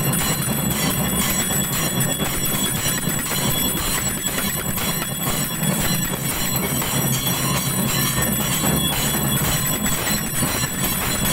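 Puja bells clanging continuously in a dense, rapid metallic rattle, with high ringing tones over it.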